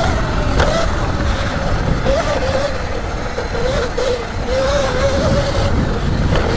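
Electric dirt bike's motor whining, its pitch rising and dipping with the throttle, over heavy wind rumble on the microphone while riding off-road.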